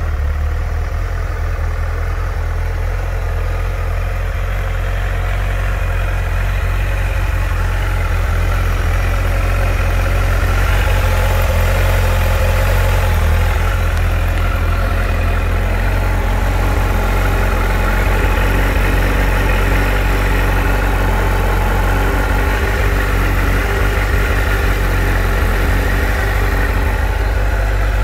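2005 Kawasaki ZZR1200's 1,164 cc liquid-cooled inline-four engine idling steadily with no revving, a little louder from about eight seconds in.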